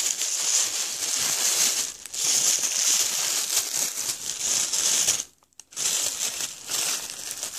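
Wrapping being crinkled and torn open by hand as a gift is unwrapped, a continuous rustling with a short pause about five seconds in.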